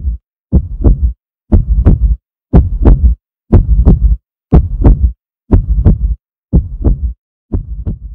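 Heartbeat sound effect: a loud, deep double thump, about once a second.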